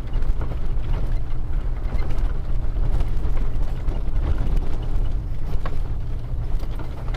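Ford Econoline E350's V10 engine running at low speed with a steady low rumble as the van crawls over a rough dirt trail, with scattered rattles and knocks from the body and suspension.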